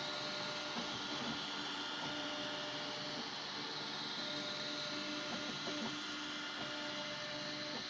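3D printer printing: its stepper motors sing in steady tones that stop and start as the print head makes short moves, over an even hiss.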